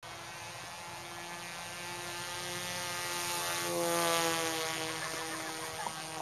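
Small remote-controlled delta-wing airplane flying past, its electric motor and propeller giving a steady whine that grows louder to a peak about four seconds in, then fades as the pitch sinks slightly.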